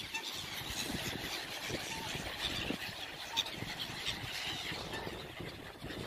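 A large flock of gulls calling over one another: a continuous chatter of many short, high squealing cries.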